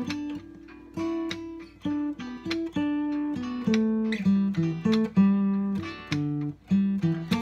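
Acoustic guitar played solo, noodling: a loose run of picked chords and single notes, each ringing on before the next.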